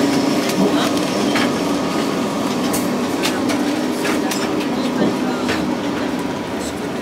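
Heard from inside the cabin of a vintage Lisbon tram 28 climbing uphill: steady running noise of the tram on its rails, with frequent sharp clicks and knocks as the old car rattles.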